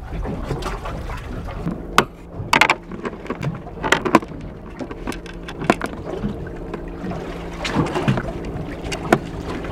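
Scattered sharp knocks and clicks of squid bait being cut and handled on a plastic bait board aboard a boat, over a steady low hum and wind.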